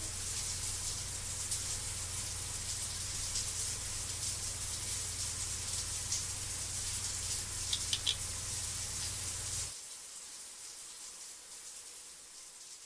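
Bathroom tap running into a sink, a steady rush of water that cuts off about ten seconds in, leaving a fainter hiss.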